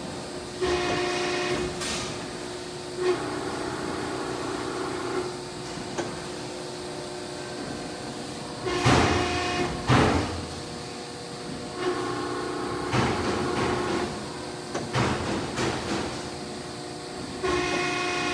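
Cincinnati 230-ton CNC hydraulic press brake cycling through a bend sequence: a whine starts and stops in about five bursts as the ram and backgauge move. The loudest moment is a pair of sharp clunks about nine and ten seconds in.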